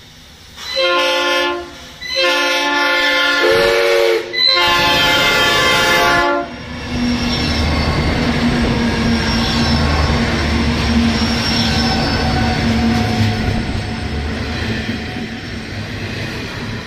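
Diesel locomotive horn on Pacific National 90 class 9023 sounding three chord blasts, the last two longer, with a short lower tone heard briefly during the second. Then the coal train runs past close by: a steady locomotive engine drone under a heavy rumble and clatter of wheels on the rails, easing a little near the end.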